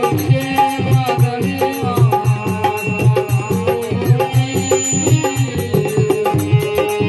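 Rajasthani devotional folk bhajan music: a hand drum keeps a steady beat under a melodic instrumental line.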